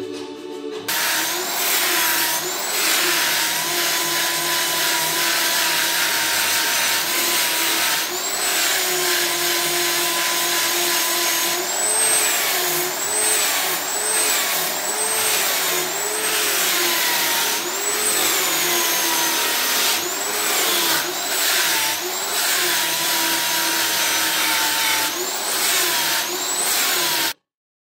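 Handheld electric rotary sander with a disc pad sanding wood: a steady gritty hiss over a motor whine whose pitch dips and recovers again and again as the disc is pressed into the surface. It starts about a second in and cuts off suddenly near the end.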